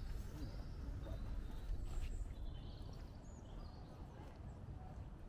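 Outdoor ambience: footsteps of someone walking, with a few faint chirps from small birds over a steady low rumble.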